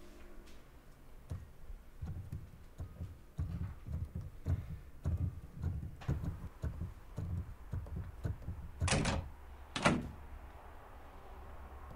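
Muted thumping of piano keys being played with no notes heard, as on a digital piano played through headphones. Near the end, two louder bangs about a second apart interrupt it.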